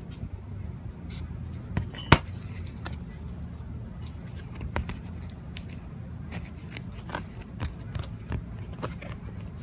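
Handling noise from a foam underlayment sample being gripped and rubbed by fingers against a metal ruler: scattered small clicks and scrapes, with one sharp click about two seconds in, over a steady low background rumble.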